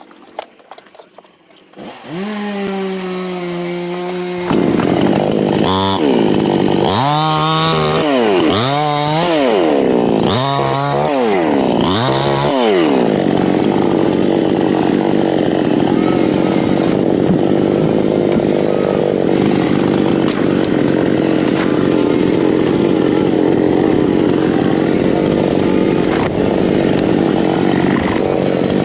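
Two-stroke chainsaw starting about two seconds in, running low, then revved up and down about five times before being held at steady high speed, cutting into a teak trunk.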